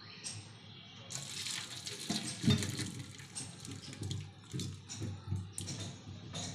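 Cooking water and boiled papaya cubes poured from an aluminium pot through a wire-mesh strainer into a steel sink: water splashing and draining, starting about a second in. A loud thud about two and a half seconds in, with lighter knocks after it.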